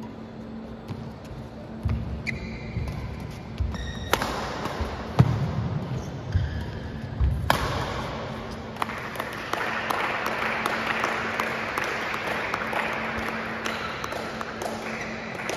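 Badminton rally on an indoor court: players' feet thudding on the floor with brief shoe squeaks, and a couple of sharp racket hits on the shuttlecock. From about halfway a crowd claps and cheers for several seconds, typical of the end of a point.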